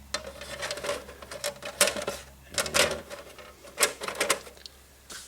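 Plastic model-kit parts being handled and set down on a work surface: a run of irregular light clicks and clacks, several louder taps about two, three and four seconds in.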